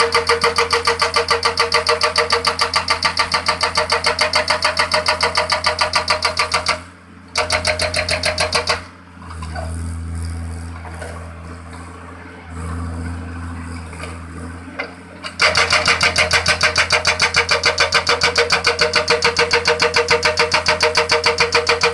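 Excavator-mounted hydraulic breaker hammering the ground in rapid, steady blows with a ringing tone, powered by a newly installed hydraulic pump under test. The hammering breaks off briefly about seven seconds in, then stops for about six seconds while the diesel engine and hydraulics run on, swelling twice as the breaker is lifted and repositioned. The hammering then starts again.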